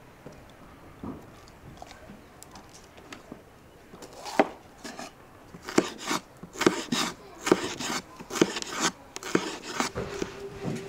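Chef's knife slicing bell peppers on a wooden cutting board: sharp knocks of the blade on the board, sparse at first, then coming several a second from about halfway.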